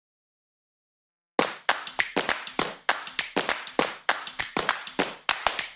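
Sharp, clap-like percussive hits in a quick, uneven rhythm, about five a second, starting about a second and a half in.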